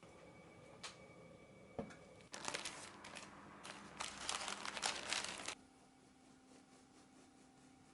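Crinkling and rustling that starts abruptly about two seconds in, runs dense and crackly for about three seconds, then stops suddenly.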